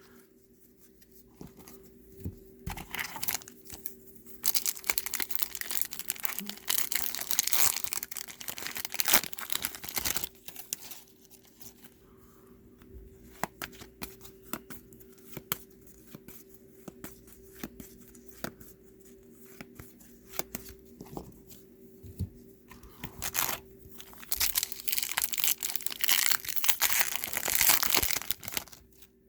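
Foil trading-card pack wrappers being torn open and crinkled, in two long stretches about five and twenty-four seconds in, with light clicks and taps between.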